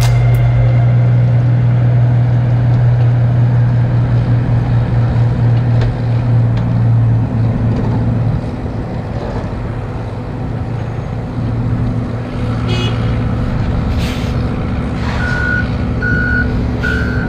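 Peterbilt 379 diesel engine pulling a loaded trailer away, a steady low drone that fades after about eight seconds as the truck drives off. A short hiss of air comes about two-thirds of the way through. Near the end a vehicle's backup alarm starts beeping at an even pace.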